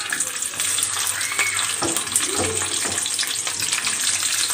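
Sliced onions sizzling and crackling in hot oil in a pan as they are dropped in and stirred with a spatula: the start of sautéing. The sizzle starts as the onions go in and then holds steady.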